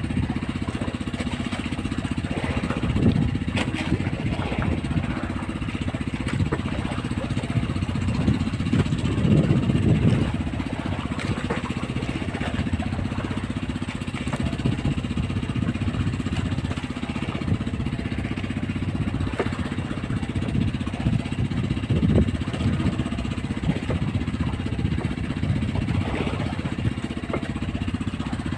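A small engine running steadily aboard a fishing boat, with a low, even drone throughout.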